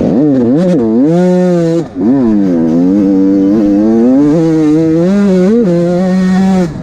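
Motocross bike engine at race pace, revving up and down repeatedly as the throttle is worked, with a brief throttle-off about two seconds in before it pulls again and holds high revs.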